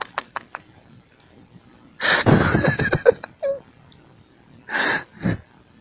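A man laughing breathily behind a hand held over his mouth: a few short puffs at the start, a longer burst about two seconds in, and two short ones near the end.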